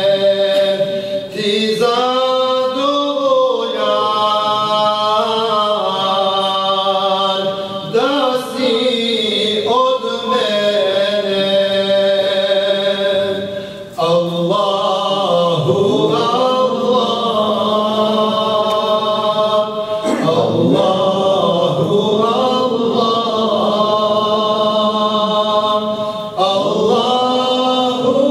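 A man's solo voice singing an ilahija, a Bosnian Islamic devotional hymn, in long ornamented phrases whose pitch slides and turns, with brief breaks for breath about 14 and 26 seconds in.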